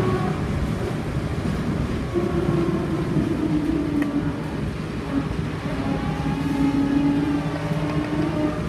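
Škoda 14Tr trolleybus under way, heard from inside at the front: the electric traction drive whines, its pitch shifting up and down with speed, over steady road rumble and body rattle.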